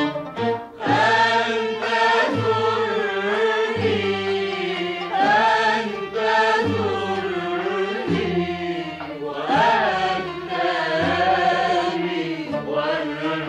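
Arabic orchestra playing a muwashshah with sung vocals, over a low pulse that repeats about every second and a half.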